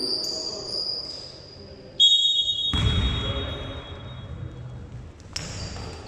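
Basketball game in a gym: a ball bouncing on the court and high squeaks from shoes, with a sudden loud, shrill high tone about two seconds in that holds for about two seconds.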